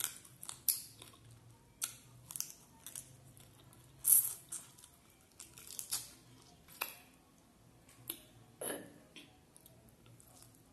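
Close-up eating sounds of rice and curry eaten by hand: wet lip smacks and chewing in short, irregular, crackly clicks.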